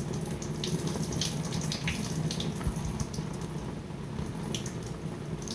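Hot water poured in a thin stream onto a piece of oilfish skin, a steady splashing pour with scattered small spatters. The skin is being blanched to soften it before its scales are scraped off.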